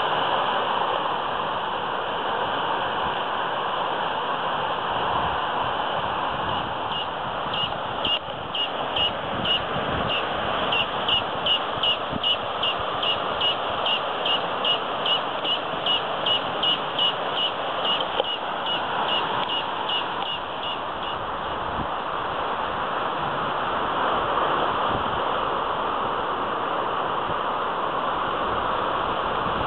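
Steady outdoor rushing noise. About a third of the way in, a high chirp starts repeating evenly about twice a second and keeps going for some fifteen seconds.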